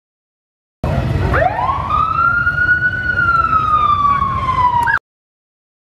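Roof-mounted police-style siren on a yellow Ford XB Falcon pursuit-car replica, sounding one wail that rises steeply, then slowly sinks, over a low rumble. It cuts off suddenly near the end.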